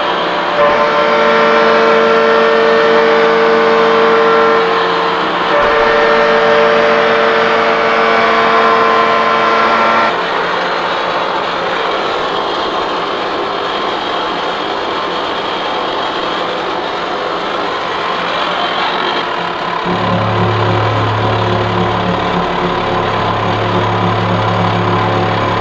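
Lucas horizontal boring mill running with a steady gear whine made of several tones, which changes to a rougher, noisier sound about ten seconds in. About twenty seconds in a deep steady hum joins, briefly broken once, as the face mill cuts across the steel heat-exchanger plate.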